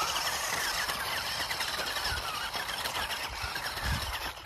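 Toy RC rock crawler's electric motor and gearbox whining as it climbs a dirt slope, the whine wavering up and down in pitch over a dense hiss. It starts and cuts off suddenly.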